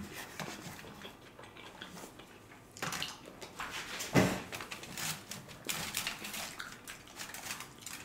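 Close-miked eating sounds: chewing pasta, with scattered clicks and a few louder clatters and rustles from a fork and a foil tray. Near the end a pizza slice is pulled up off the pie.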